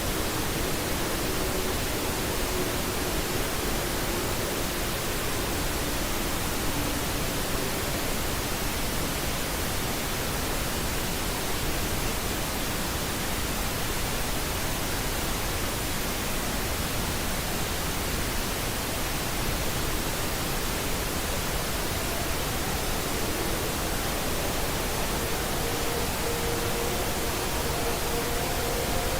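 Steady, even static hiss like an empty broadcast channel. Faint steady tones sit beneath it and fade out in the first several seconds, and a few other faint tones come in near the end.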